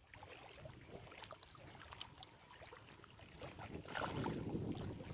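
Water lapping and splashing with wind buffeting the microphone; faint at first, growing louder about four seconds in.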